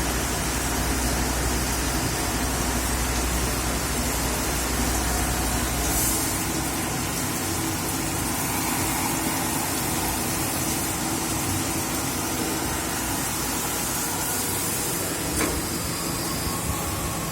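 CNC lathe running: a steady machine hiss and hum. A deep low hum cuts out about six seconds in, and there is one brief click near the end.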